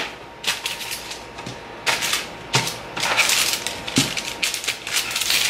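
Parchment paper crackling and rustling on a metal sheet pan as frozen cookie dough balls are set down on it, with several irregular light taps and crinkles.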